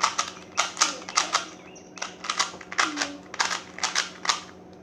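Plastic Rubik's Cube being turned by hand, its layers clacking in a quick, uneven run of about three or four clicks a second.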